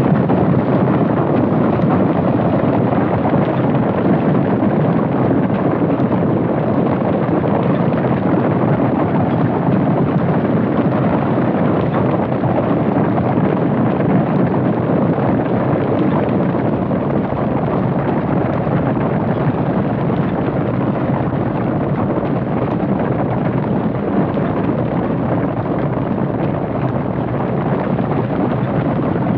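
Cattle stampede: a herd's hooves drumming on the ground in a dense, continuous rumble.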